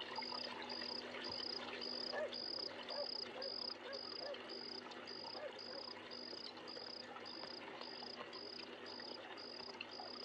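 Crickets chirping at a steady, even pace of about two chirps a second, over a faint steady low hum.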